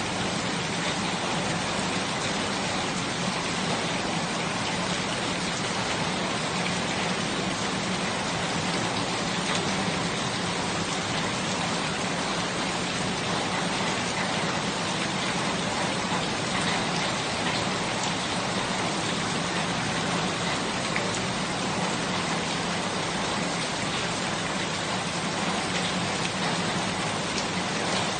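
Steady rain falling and pattering on surfaces, an even hiss with scattered small drop ticks.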